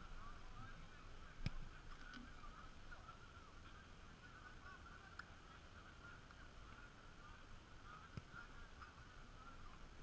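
Faint sounds of a football being kicked on an artificial pitch: two sharp thuds, the louder about a second and a half in and a softer one near the end, over a faint, steady, fluttering background.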